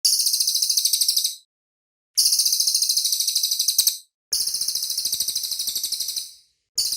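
Cililin songbird singing high, rapid trills of quickly repeated notes in four separate bursts, each a second or two long, with short silent gaps between them.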